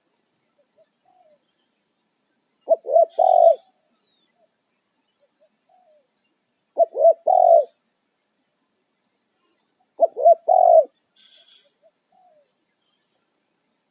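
Spotted dove (tekukur) cooing: three phrases, each two short low notes followed by a longer rolling coo, repeated about every four seconds. Faint chirps of other birds between the phrases.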